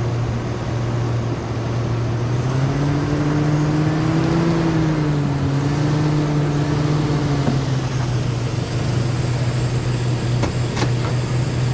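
2008 Chevy Trailblazer's 5.3-litre V8 running at low speed as the truck creeps up onto drive-on ramps. Its steady hum rises a little for a few seconds in the middle, then settles back.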